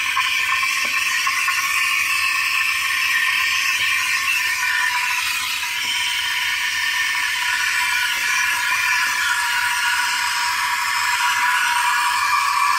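Steam wand of a home espresso machine hissing steadily into milk in a stainless steel pitcher, frothing the milk.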